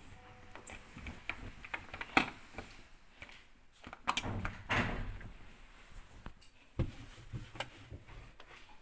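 Handling noise: scattered clicks and knocks, a sharp click about two seconds in, a scraping slide around four to five seconds, and a knock near seven seconds.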